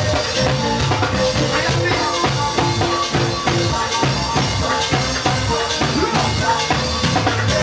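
Music with a drum kit keeping a steady beat.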